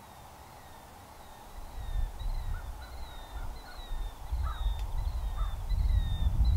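Wind buffeting the microphone, coming up about a second and a half in as an uneven rumble, with a few distant crow caws and a faint thin wavering whistle behind it.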